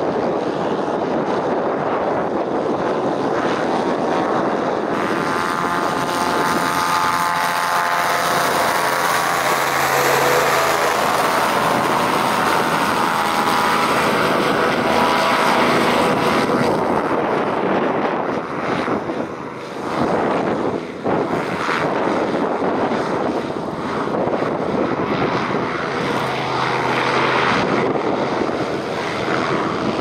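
Christy 463 PC hovercraft running fast on open water: a steady drone from its ducted thrust propeller and engines (a 37 hp thrust engine and a 26 hp lift engine), loudest in the middle, with the propeller-engine tone rising and falling. About two-thirds through the level dips briefly and gusty wind buffets the microphone.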